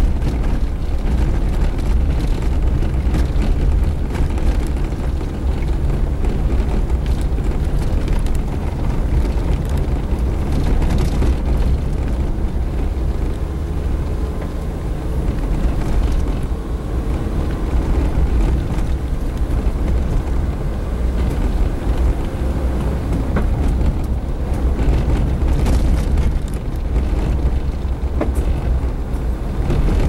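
Suzuki Jimny 4x4 driving along a rutted dirt road, heard from inside the cab: a steady low rumble of engine and tyres on the unpaved surface.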